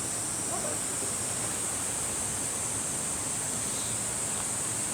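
Steady rushing of a mountain valley stream: an even hiss with a bright, constant high band and no breaks.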